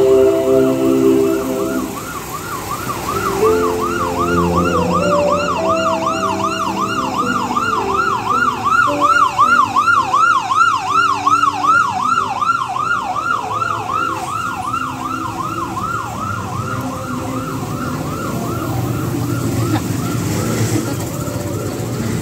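A vehicle siren sounding a rapid repeated yelp, about two rising-and-falling sweeps a second, fading out near the end. Passing vehicle engines run beneath it.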